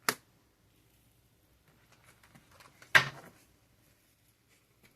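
Two brief knocks about three seconds apart, the second the louder, with a few faint small clicks just before it, as of objects being handled on a table.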